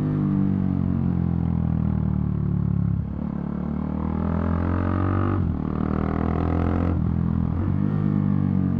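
KTM RC390's single-cylinder engine pulling hard under acceleration. Its pitch climbs, then drops sharply at upshifts about three and five and a half seconds in, before climbing again.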